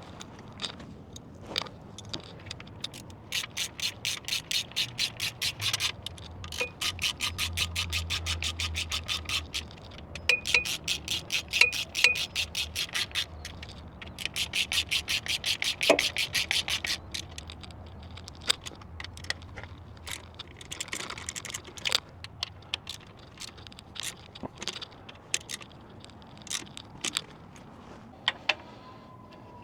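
Hand socket ratchet clicking in four runs of rapid, even clicks a few seconds long, as the alternator's mounting bolts are tightened, with a few single metal knocks between and after the runs.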